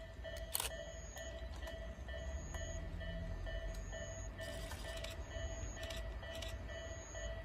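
Level crossing warning bell ringing in a steady, fast repeating electronic pattern, over a low rumble, with a few clicks and a short hiss about halfway through.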